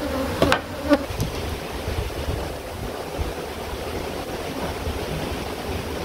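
Many Cape honeybees buzzing in a steady hum around their disturbed, opened colony, with a couple of brief knocks in the first second.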